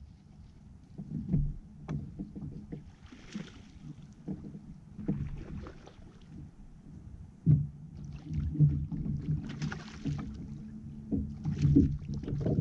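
Bass boat's outboard motor running under way, growing louder, with sharp knocks of the hull on the water.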